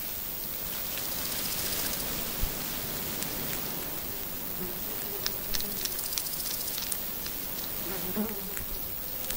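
Baby hedgehogs eating: scattered small sharp clicks and crunches of chewing, busiest in the middle, with a fly buzzing past briefly a couple of times over a steady outdoor hiss.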